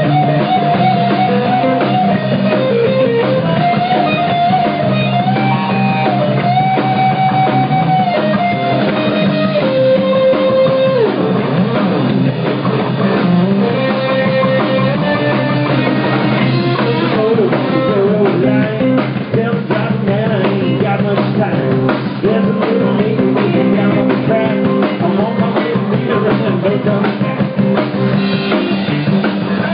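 A live rock band playing: electric guitars, bass and a drum kit. Long held, bending melody notes stand out over the first ten seconds, then the full band carries on with steady drumming.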